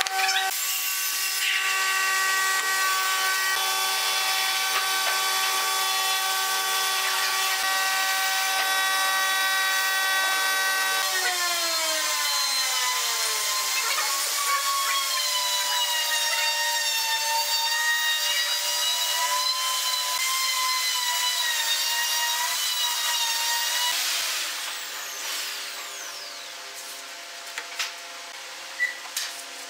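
A power-tool motor running with a steady whine of several tones, which slides down in pitch about eleven seconds in and then wavers; the sound grows quieter for the last few seconds.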